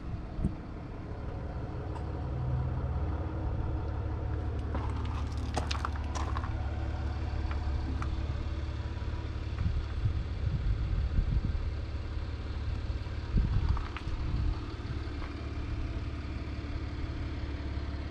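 Claas Arion 650's 6.8-litre six-cylinder diesel engine idling steadily, with a few short clicks and rustles about five to six seconds in and again near fourteen seconds.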